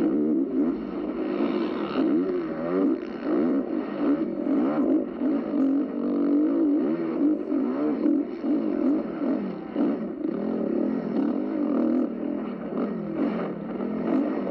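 Motocross dirt bike engine revving up and down continuously as the rider works the throttle around a sand track, its pitch rising and falling every second or so, heard close up from the bike's on-board camera.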